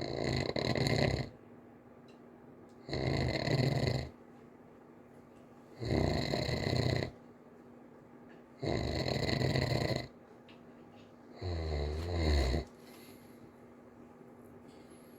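A child snoring lightly in sleep: five snores at a steady pace, about one every three seconds, each lasting about a second. The last snore is lower-pitched and rougher.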